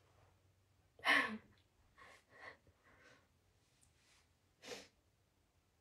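A woman's sigh about a second in, then a few faint breaths and small mouth sounds, and another short breathy exhale near the end.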